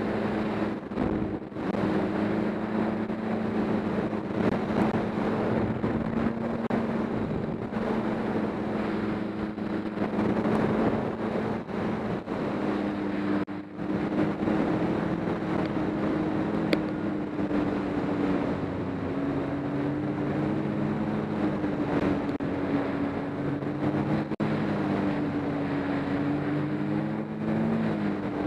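Snowmobile engine running steadily at riding speed, its pitch wavering slightly in the second half as the throttle changes, with wind rushing over the microphone.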